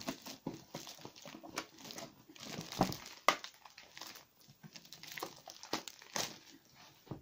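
Clear plastic wrapping crinkling and rustling as it is pulled off a boxed set by hand. The crackling is irregular, with a couple of sharper crackles about three seconds in.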